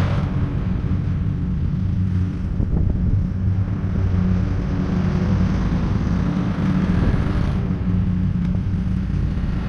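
Walk-behind gasoline lawn mower engine running steadily, a low hum with a rumble.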